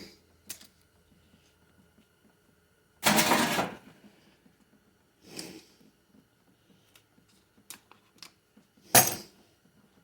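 Hard transmission parts being handled on a workbench: scattered light clicks, a loud scraping rattle lasting under a second about three seconds in, and a sharp loud clack about nine seconds in.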